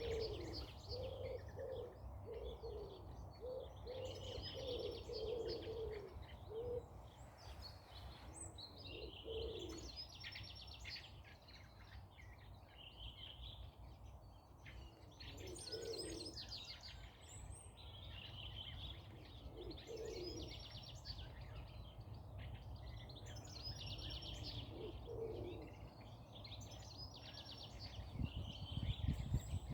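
Wild birds singing: short high song phrases repeat every few seconds, with low cooing calls mixed in, over a steady low rumble that grows louder near the end.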